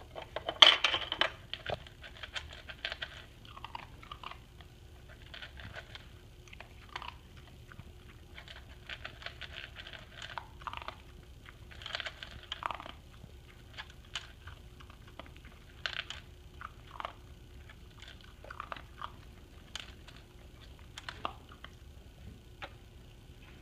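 Australian Shepherd puppy working a plastic dog puzzle toy: scattered clicks and knocks of the plastic cups and flaps, with crunching as it chews the treats it finds. The loudest clatter comes about a second in.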